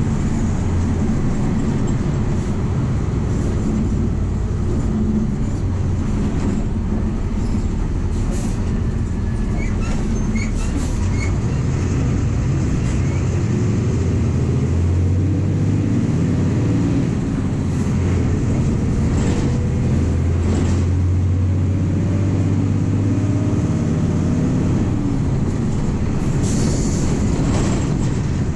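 MWM 6.12 TCE six-cylinder turbodiesel of a VW 17.230 EOD bus running under way, heard from inside the passenger cabin with road noise, its low drone growing stronger for a few seconds past the middle. A few short rattles come through now and then.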